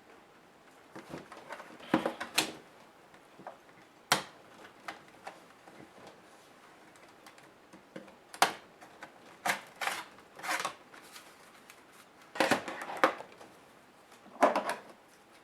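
Plastic and metal parts of a Toshiba Satellite A505 laptop being handled during disassembly: scattered sharp clicks and short clattering rattles at irregular intervals, with quiet gaps between.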